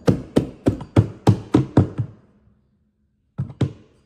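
Hand hammer knocking carpet into place on a stair riser, about three dull strikes a second, stopping about two seconds in; two more quick knocks near the end.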